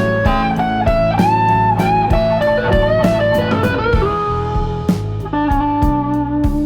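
Background music: a bluesy electric guitar melody with sliding notes over a steady bass and beat.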